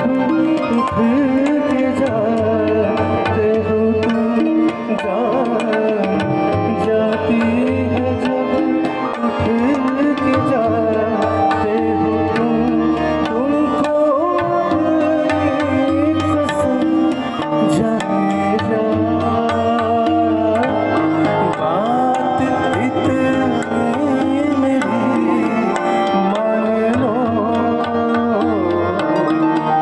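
Live ghazal music played through a PA sound system: tabla keeps a steady rhythm under acoustic guitar and a sung melody.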